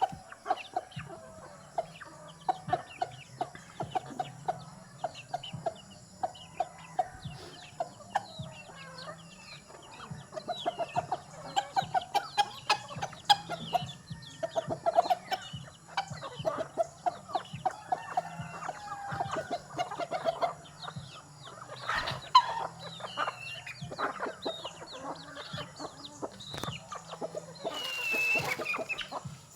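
A flock of chickens calling continuously while feeding: many short overlapping clucks and peeps, mixed with lots of small clicks. One louder falling call comes near the end.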